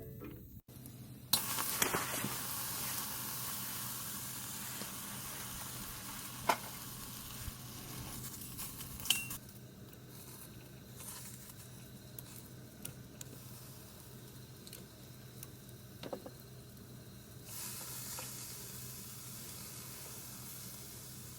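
Food sizzling as it cooks on a hot grill: a steady frying hiss with a few small sharp pops, changing abruptly a few times where takes are cut together.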